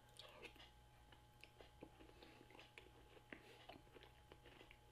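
Faint chewing of a mouthful of chicken pot pie, with small irregular clicks of the mouth.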